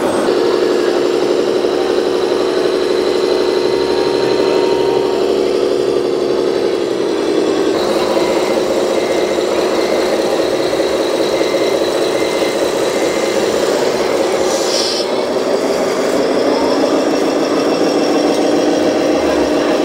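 Truck engine sound idling steadily. The note changes about eight seconds in and climbs a little near the end.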